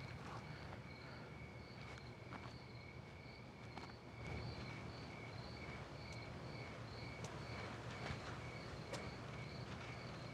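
Crickets chirping steadily at night, about twice a second, over a low steady hum, with a few faint scattered ticks.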